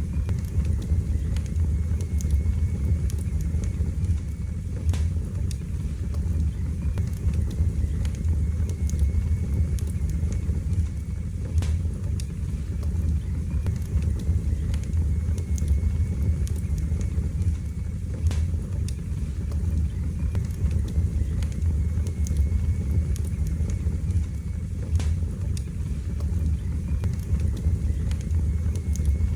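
Fire burning in a fireplace: a steady low rumble of flames with sharp crackles and pops scattered irregularly through it.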